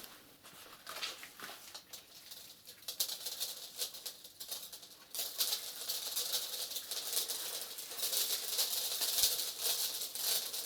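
Small dry debris being poured and scattered onto the floor: a patter of many tiny grains landing, sparse at first and turning into a dense, continuous rattle about halfway through.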